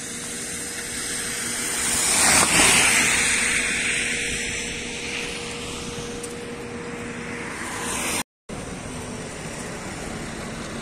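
A vehicle passing close by on a flooded road, its tyres hissing through the water. The sound swells to a peak about two and a half seconds in and then fades away.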